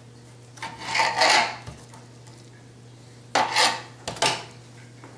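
Large kitchen knife sawing through a raw pork loin and rasping against the cutting board. There is one longer stroke about half a second in, then two short strokes near the end.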